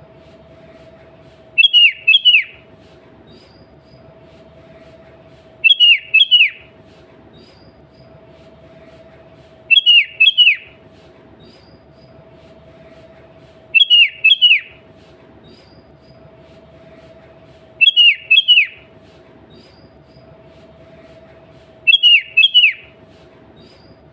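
Sooty-headed bulbul (kutilang) calling: a short phrase of two or three quick clear notes, repeated six times at even intervals of about four seconds, over a faint steady hum.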